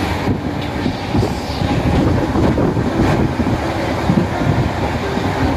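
Moving Indian Railways passenger coach, heard from on board: a steady, loud rumble and rattle of the coach running on the track.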